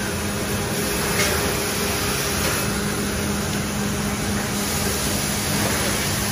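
Automatic sheet-fed screen printing press running: a steady hiss of machinery and air with a constant low hum, and one faint tick about a second in.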